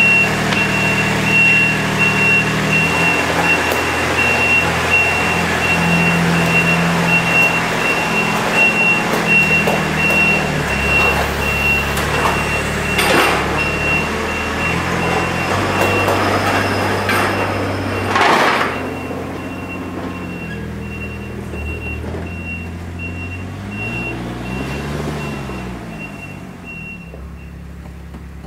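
Kubota RTV utility vehicle's engine running as it reverses, its backup alarm giving a steady series of short high beeps. Two brief loud rushes of noise come about 13 and 18 seconds in, and after that the sound is quieter until the beeping stops near the end.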